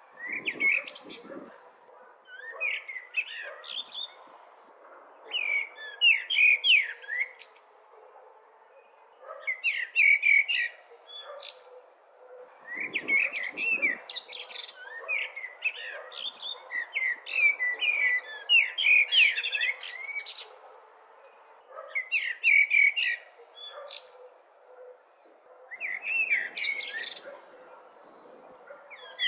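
Blackbird singing: short warbled phrases a second or two long, many ending in a high thin twitter, repeated with pauses of a second or two between them, over a faint steady background hiss.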